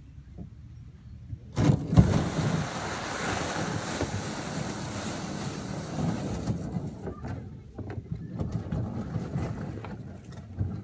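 Plastic sit-on-top kayak hull dragged across sand and pebbles, a loud scraping that starts suddenly about a second and a half in and fades as the boat moves off toward the water. Fainter knocks and clatter follow as it is handled at the water's edge.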